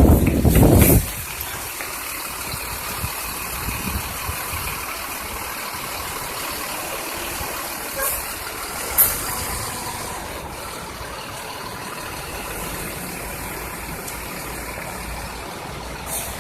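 Bus engines running with a steady rumble, with short air-brake hisses about eight and nine seconds in and again near the end. A loud burst of sound fills the first second and stops abruptly.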